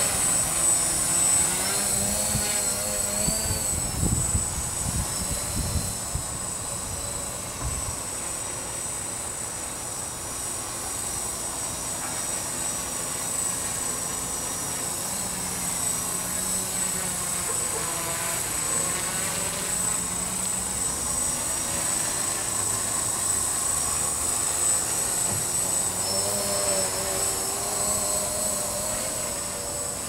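Quadcopter motors and propellers buzzing in flight, the pitch wavering up and down as the motors speed up and slow down to hold it steady. Gusts of wind buffet the microphone with a low rumble during the first several seconds.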